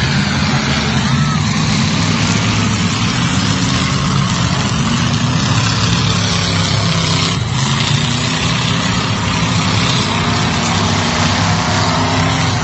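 Demolition derby cars' engines running together, a loud steady din with a single short knock about seven and a half seconds in.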